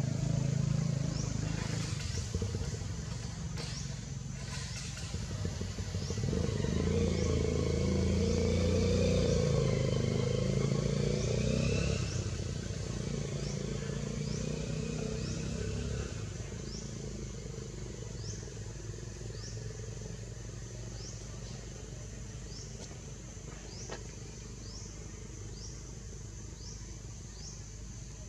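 A motor vehicle's engine running nearby, loudest in the middle and then fading to a steady low hum. A short high chirp repeats about once a second throughout.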